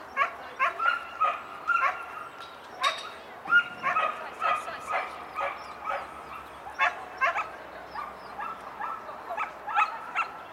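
Border collie barking repeatedly in high-pitched barks, about two a second, with a few barks drawn out longer.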